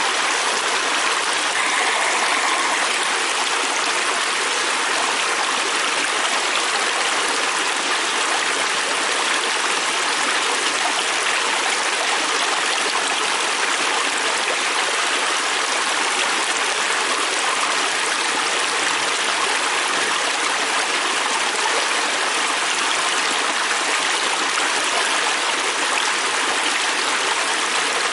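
Fast-flowing river stream rushing steadily over its bed, an even, unbroken water noise.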